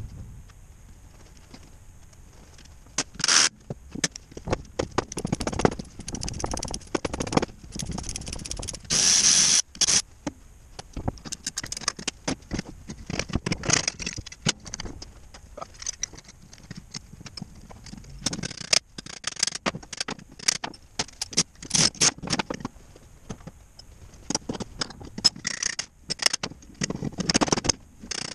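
Metal parts of a JATCO JR403E automatic transmission being handled and pulled apart on a steel workbench: irregular clanks, clicks and scrapes of metal on metal. About nine seconds in there is a louder burst of noise that lasts about a second.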